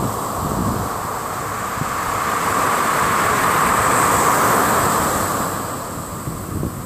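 Ocean surf: a rushing wash of waves that swells to its loudest about halfway through and eases off near the end.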